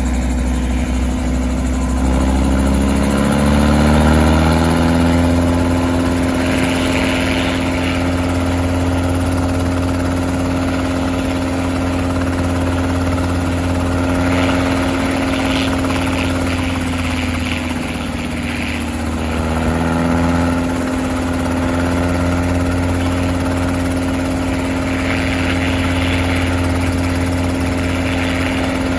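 Robinson R22 helicopter's piston engine running on the ground with the rotor turning. The engine pitch climbs a few seconds in, holds steady, dips briefly about two-thirds of the way through and climbs back.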